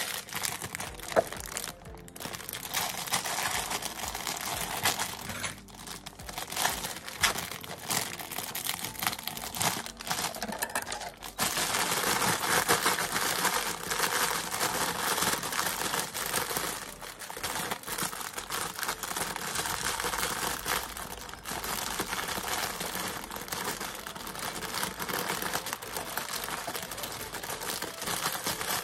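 Thin plastic salad bags crinkling and crackling as they are handled, shaken and squeezed to tip the leaves out, a continuous rustle that is loudest for a few seconds around the middle.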